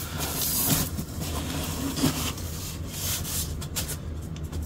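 Cardboard box lid sliding off and crumpled packing paper rustling, a scraping and rustling that is loudest at the start, with a few small crackles later.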